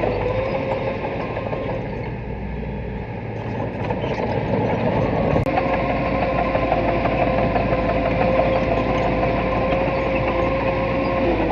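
Heavy earthmoving machine's diesel engine running steadily with a constant high whine. It eases off about two seconds in and picks up again about five seconds in, just after a sharp click.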